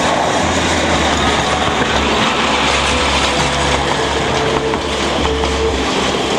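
Narrow-gauge steam locomotive 99 782 and its train passing at close range: a steady, loud mix of working steam exhaust, running gear and carriage wheels rolling over the rails.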